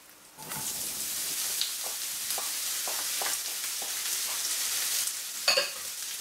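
Diced zucchini sliding into a hot frying pan of oil, starting to sizzle about half a second in and sizzling steadily after that. A few light clicks of the glass bowl and utensils against the pan, and a sharp knock near the end.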